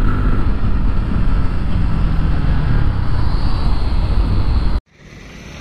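Bajaj Pulsar NS160 single-cylinder motorcycle being ridden, its engine running steadily under the rush of riding noise. The sound cuts off abruptly near the end, giving way to a much quieter steady background.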